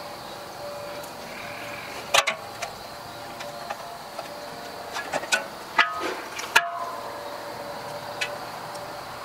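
Steel latch parts clanking against each other, a handful of sharp knocks that ring briefly, over a steady background hum.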